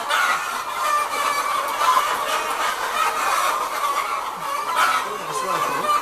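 A large flock of brown laying hens in battery cages clucking, many birds calling at once in a steady, unbroken chorus.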